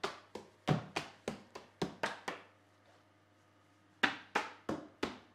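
Hands tapping books laid flat on a worktop, one book after another in a memory-game sequence: a quick run of about nine taps, a pause of over a second, then a second run of about six taps.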